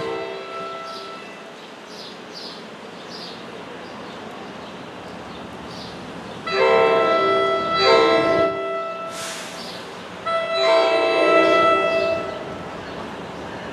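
An approaching NJ Transit train sounds its multi-note horn: two blasts in quick succession about six and a half seconds in, then a longer blast about ten seconds in.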